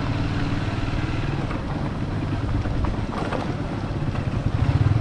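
A vehicle's engine running steadily with road noise while travelling along a road, growing louder near the end.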